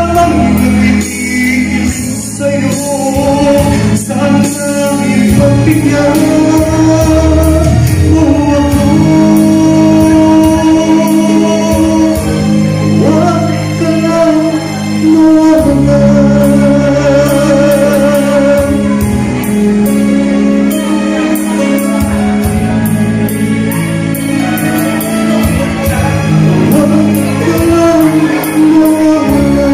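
A man singing a song into a microphone, his amplified voice carried over instrumental accompaniment, loud and continuous.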